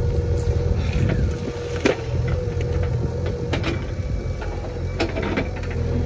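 JCB backhoe loader's diesel engine running steadily under load as the backhoe digs and dumps soil, with a few sharp knocks from the bucket and falling earth about two and five seconds in.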